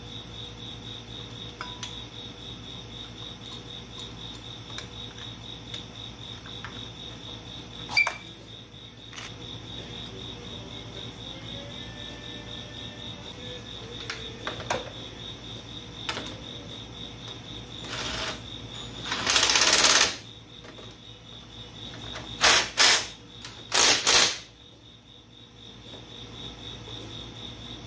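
A cordless power driver run in four short bursts on the brake caliper's mounting bolts of an ATV front disc brake, the longest about two thirds of a second, after a few light metallic clicks of hand tools. A constant high-pitched pulsing chirp runs underneath throughout.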